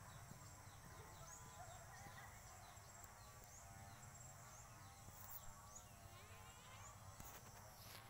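Near silence: faint outdoor ambience, with soft, high, repeated chirping over a low steady rumble.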